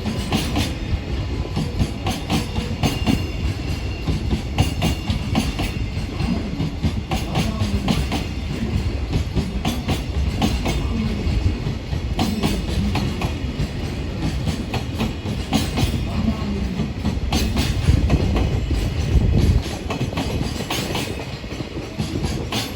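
Electric-hauled freight train's wagons rolling past at speed, a continuous low rumble with wheels clacking rapidly over rail joints.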